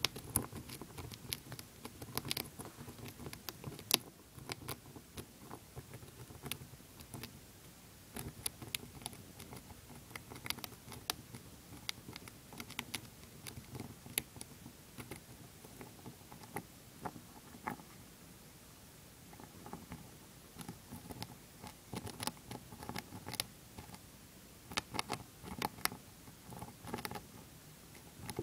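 Dwarf hamster gnawing a shelled peanut: rapid, irregular tiny crunching clicks in quick clusters, with a quieter pause about two-thirds of the way through.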